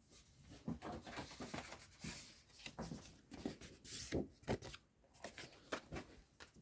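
Card stock being handled and stuck down by hand: paper rustling with a run of soft taps and knocks.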